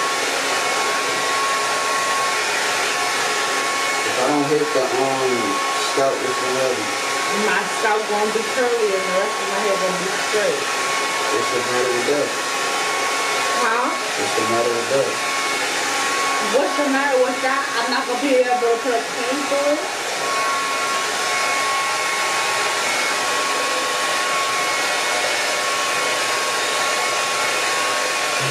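Handheld hair dryer blowing steadily: a constant rush of air with a steady high whine. A voice sounds faintly under it from about four seconds in until about twenty seconds in.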